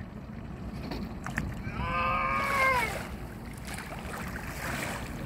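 Low, steady rumble of a fishing boat on the river, with wind and water noise. About two seconds in comes one high, drawn-out call lasting about a second, falling slightly at its end.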